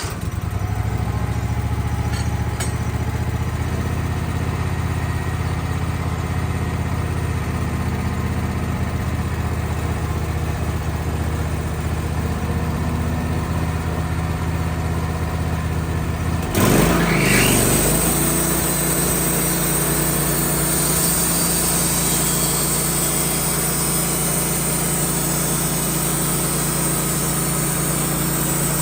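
Portable band sawmill's engine running steadily at low speed; about seventeen seconds in it is throttled up with a brief rising whine and settles at a higher, steady speed, a high hiss joining it.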